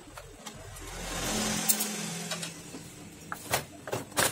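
A motor vehicle driving past: its sound swells to a peak about a second and a half in and then fades, its engine note dropping slightly in pitch. A few sharp metal clicks near the end come from parts and a screwdriver being handled on the copier's frame.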